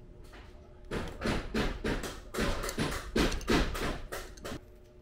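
An irregular run of a dozen or so short, sharp knocks and taps, starting about a second in and stopping shortly before the end.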